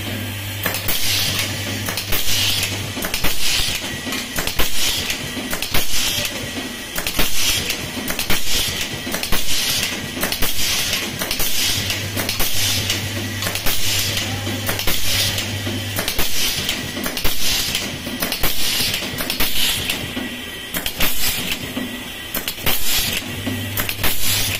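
Automatic-feeding blind rivet tool setting 3.2 mm rivets one after another, about one every 1.2 seconds: each a sharp snap of the rivet being pulled tight, with a burst of air hiss and metallic clinking. A low hum comes and goes a few times.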